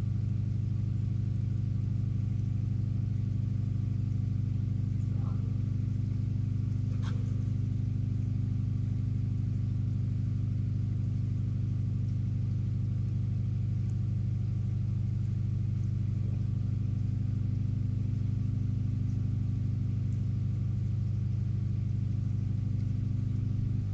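Steady low hum with a series of faint even overtones, unchanging throughout. A couple of faint short squeaks stand out about five and seven seconds in.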